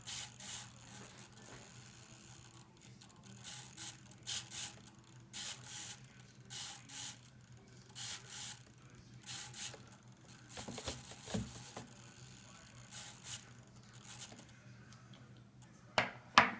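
RC helicopter swashplate servos driven in short, irregular bursts of high buzzing, roughly one or two a second, over a low steady hum. The front servo is working only intermittently. Two sharp knocks come near the end.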